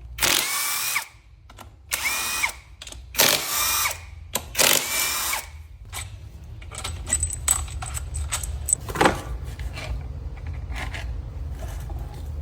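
A handheld power tool, a drill or driver type, runs in four short bursts, each with a whine that rises and then drops as bolts are spun out during an engine teardown. After that come light metallic clicks and clinks of parts being handled, and one sharp knock about nine seconds in.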